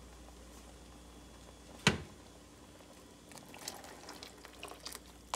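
Coconut milk poured from a glass measuring jug into a pot of simmering green pigeon peas, with light splashing and small clinks in the second half. A single sharp knock comes about two seconds in.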